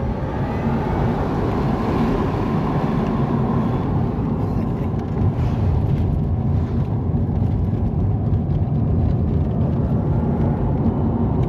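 Cabin sound of an electric Porsche 924, converted with Nissan LEAF drive parts, cruising along a road: a steady low rumble of tyre and wind noise.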